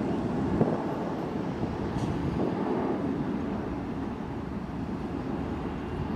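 Steady low rumble of jet airliner engines at the airport, with a brief knock about half a second in.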